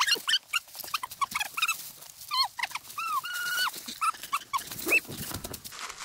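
A dog whining: a string of short, high whines that rise and fall, with one longer held whine about three seconds in.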